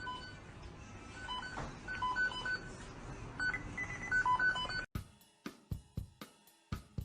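A run of short electronic beeps at a few different pitches, like telephone keypad tones, over a low hum. About five seconds in it cuts off suddenly, and music with an even drum beat takes over.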